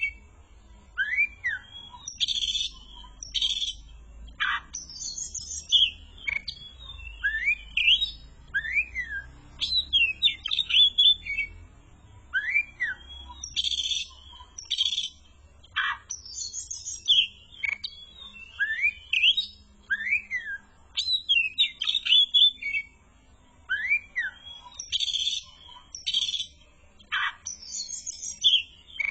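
Oriental magpie-robin (kacer) singing in short repeated phrases, a phrase every second or two: clear rising whistled notes alternating with harsh, scratchy chatter.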